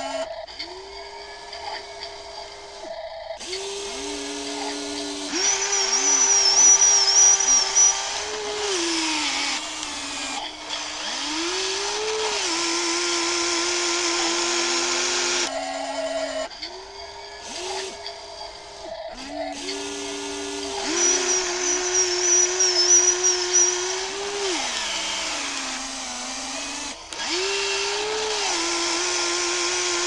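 Electric motors of a radio-controlled excavator whining as the boom, arm and bucket move. The pitch falls and rises as the motors load up, stop and start again, and the sound grows louder twice.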